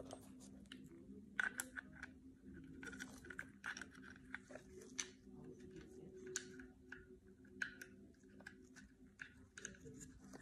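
Faint, irregular small clicks and scratches of metal parts being handled and fitted on an HK P30 pistol's trigger mechanism, over a steady low hum.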